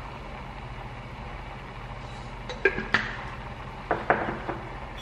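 A few sharp clinks and knocks, a glass jar and a small cup set down and handled on a hard countertop: two about two and a half seconds in and three more a second later, over a steady low hum.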